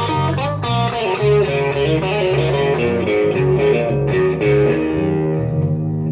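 Electric guitar and electric bass playing a blues-rock instrumental passage live: the guitar plays a line of quickly changing notes over a pulsing bass line.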